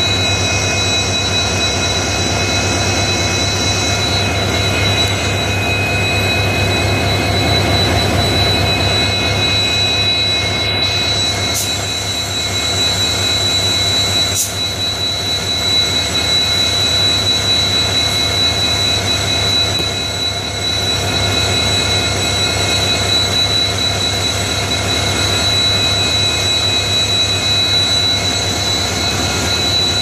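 EMD 16-710 two-stroke V16 diesel engine of a WDP-4D locomotive running steadily after start-up: an even, rhythmic low throb under a constant high whine.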